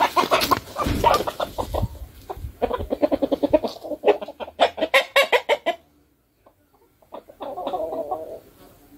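Chickens clucking in rapid runs of short clucks for about six seconds, then a brief pause and another short call near the end.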